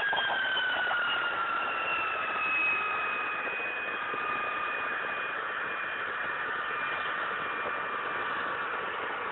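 Jet engine running with a steady rush and a high whine that slowly falls in pitch over the first few seconds, then holds steady.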